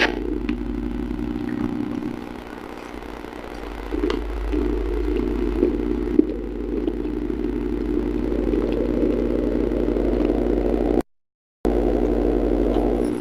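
Steady low mechanical hum with a few faint clicks, the sharpest right at the start. The sound cuts out completely for about half a second near the end.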